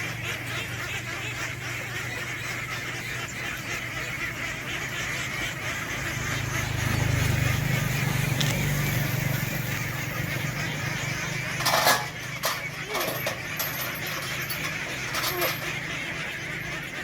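A large flock of domestic ducks quacking all together in a continuous buzzing din, like a swarm of bees. A steady low hum runs underneath and swells midway, and a sharp clatter comes about twelve seconds in, followed by a few smaller knocks.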